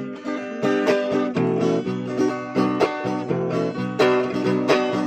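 Guitar playing an instrumental passage of quick plucked notes between the sung lines of a song.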